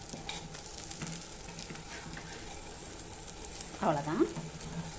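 Egg-and-milk-soaked bread slices sizzling on a flat dosa griddle, with a metal spatula scraping and tapping on the pan as the slices are turned over.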